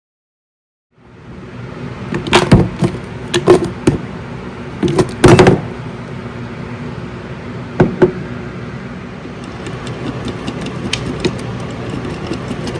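Kosher salt being shaken out of its container, which is hard to do one-handed: a run of sharp knocks and shaking rattles in the first half, two more near the middle, then lighter taps, over a steady background hum.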